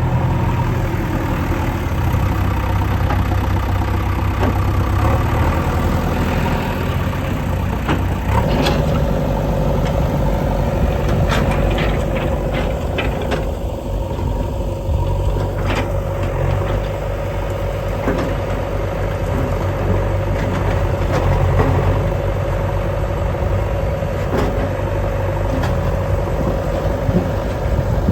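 JCB 3DX backhoe loader's engine running steadily with a low rumble; a steady whine joins about eight seconds in, and a few sharp clicks come in the middle.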